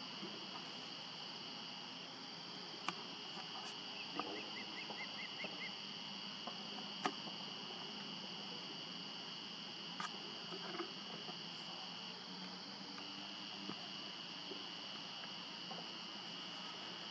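Steady, high-pitched evening chorus of calling animals, with a few sharp clicks about three, seven and ten seconds in and a short run of quick chirps between four and six seconds in.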